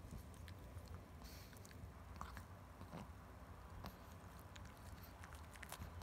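A Pekingese gnawing and chewing a stick-shaped chew treat: faint, irregular clicks and crunches of teeth biting on the treat.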